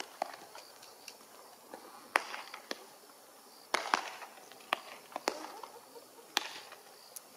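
Baseballs smacking into leather gloves during a game of catch: sharp pops, the loudest about two, four and six and a half seconds in, among lighter clicks and taps.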